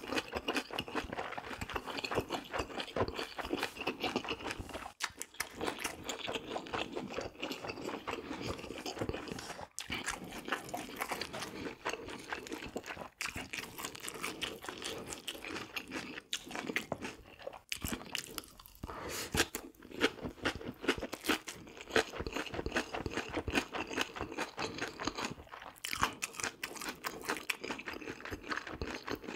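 Close-miked chewing and crunching of a meal of fresh napa-cabbage kimchi (geotjeori) with beef bulgogi and rice: a dense run of crisp crunches and wet chews, broken by a few short pauses.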